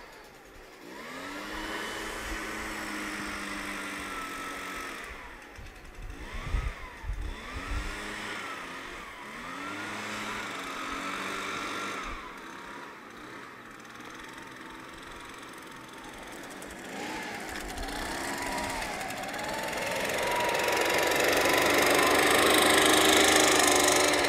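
Backpack leaf blower engine being throttled up and down several times in short revs, then opened up to a steady high-pitched full-throttle run, loudest near the end.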